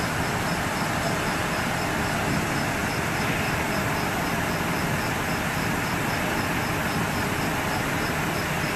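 Steady engine rumble of emergency vehicles idling at the roadside, with a faint, even ticking high above it.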